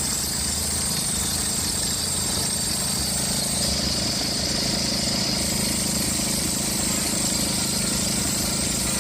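Car engine idling with a steady high-pitched squeal from its slipping fan belt (drive belt).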